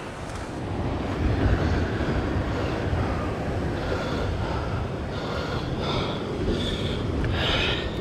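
Wind buffeting the camera microphone, a low rumble throughout, with a brief rustle of handling noise near the end.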